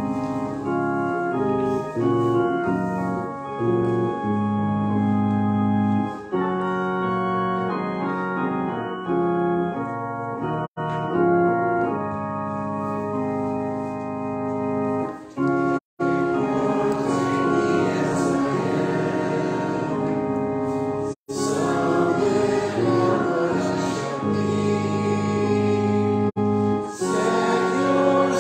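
Church organ playing a hymn tune through alone as an introduction. About halfway in, a congregation starts singing the hymn over the organ accompaniment. The sound cuts out for an instant several times.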